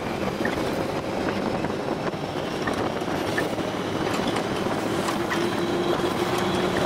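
Test Track ride vehicle running at high speed around the banked outdoor loop: a steady rumble of its tyres on the track along with rushing air, with a faint tone creeping up in pitch in the second half as it accelerates.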